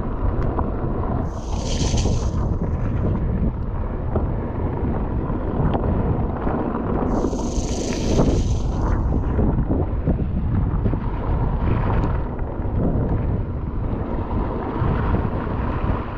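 Wind buffeting the microphone and a steady rumble of mountain bike tyres rolling fast over a wet gravel trail. Two brief hissing rushes come about 2 seconds in and again about 8 seconds in.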